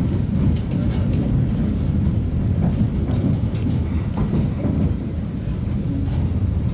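Tatra T3 tram running along the track, heard from inside the car: a steady low rumble of wheels and running gear, with scattered clicks and knocks.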